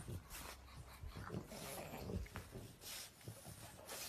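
Pug making faint noisy breaths and snuffles, several short ones over a few seconds.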